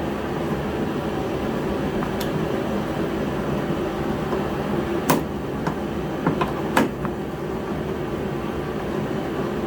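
A heater running with a steady whir, and a few sharp clicks and knocks about five to seven seconds in.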